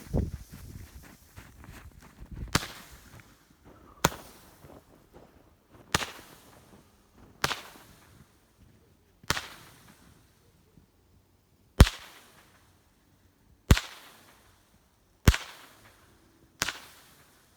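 Shogun 'Red & Blue' consumer firework cake firing its comet shots one tube at a time: about ten sharp reports, one every one and a half to two and a half seconds, each dying away quickly.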